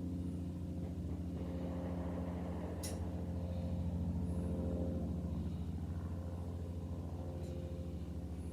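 An engine running steadily at idle, with one sharp click about three seconds in.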